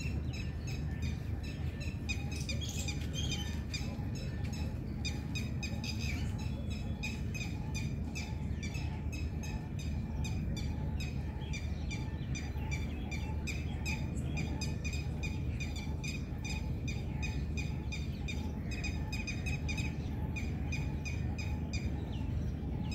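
A bird calling over and over in short, high, repeated notes, about three a second, over a steady low rumble.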